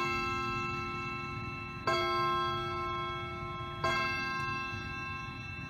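Vintage desk clock chiming: three strikes about two seconds apart, each ringing on and slowly fading.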